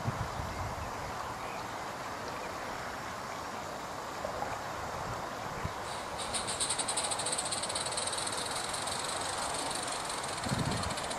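Roundhouse 'Millie' live steam model locomotive running with its train of wagons along garden railway track. From about six seconds in, a fast, even hissing chuff of its steam exhaust grows louder as it draws near.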